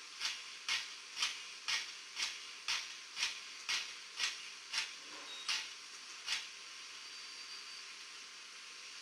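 Digital sound decoder in an N-scale Fleischmann BR94 model steam locomotive playing steam chuffs, about two a second, that slow and stop about two-thirds of the way through, followed by a faint steady hiss.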